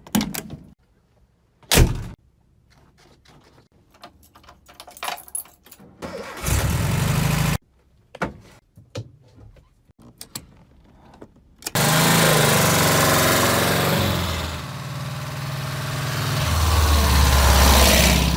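Van door latch clicking and a sharp knock, then small clicks of keys at the ignition and a brief whir about six seconds in. About twelve seconds in, the VW T3 Vanagon's water-cooled flat-four (Wasserboxer) engine starts and runs, growing louder near the end.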